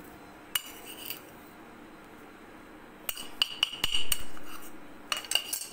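Metal spoon clinking and scraping against the side of an aluminium pot as diced carrots and peas are stirred, in scattered strokes with a louder knock just before four seconds in that rings and fades over about a second.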